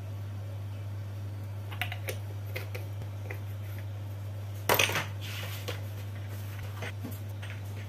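Clicks and rattles of a small plastic bottle of sesame seeds being handled and shaken out over a bowl, with a louder burst of rattling about five seconds in. A steady low hum runs underneath.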